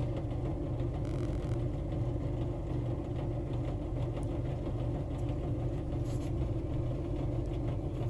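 Steady low mechanical hum of running machinery, an even drone that does not change.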